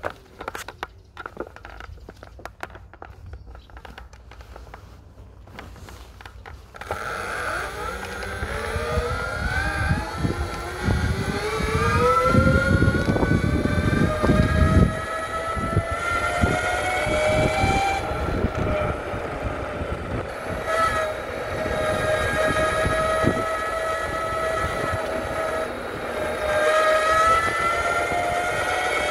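SYL-08 V3 electric mountainboard's motors whining. Starting about seven seconds in, the pitch climbs steadily as the board speeds up, then levels off, rising and dipping a little with speed. A low rumble runs under the whine for a few seconds while it climbs; before the motors start there are only scattered faint clicks.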